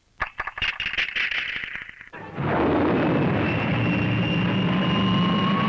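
Cartoon rocket-engine sound effect: a brief run of crackling pops, then from about two and a half seconds in a loud steady rocket roar with a thin whistle rising slowly in pitch.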